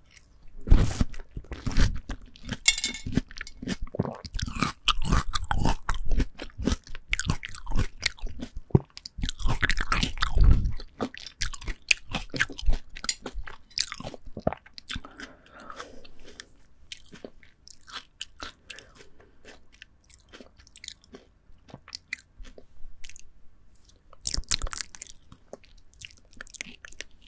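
Close-miked eating of ripe, juicy melon: wet bites and chewing with crunchy, crackly clicks. The biting and chewing are dense and loud for the first half, then turn quieter and sparser, with one more loud bite near the end.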